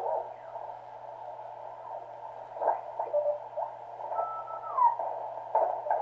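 Heathkit SB-301 shortwave receiver tuned slowly across the CW band. Hiss is squeezed into a narrow band around 700 Hz by its 400 Hz CW crystal filter, and Morse carrier tones slide down in pitch as the dial turns. A few short crackles break in.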